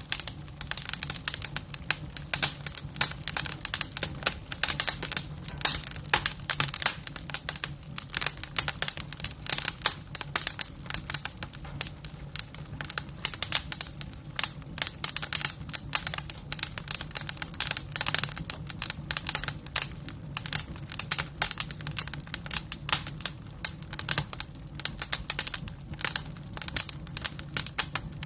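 Wood fire crackling: a dense, irregular stream of sharp pops and snaps from burning logs, over a faint steady low hum.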